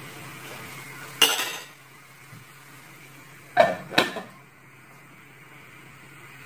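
Cookware clatter: a single sharp, ringing clink about a second in as the metal ladle is set down, then two clanks close together near the middle as a glass lid is set onto the steel cooking pot.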